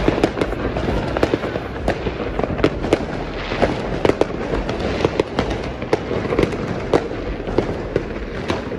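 Fireworks going off in a dense barrage: sharp bangs several times a second at irregular spacing, over a continuous noise of many overlapping bursts.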